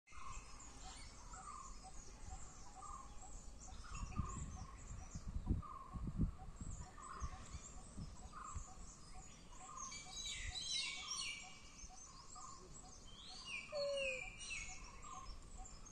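Forest birds calling and chirping, one short note repeated steadily about twice a second, with bursts of higher chirping near the middle and end. A few low thumps come about four to six seconds in.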